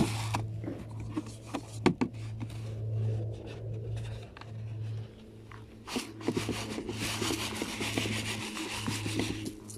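Rock salt being scattered from a plastic bucket onto icy, snow-covered pavement: granules pattering and crunching on the ice, densest in a long spell in the second half, after a couple of sharp knocks near the start.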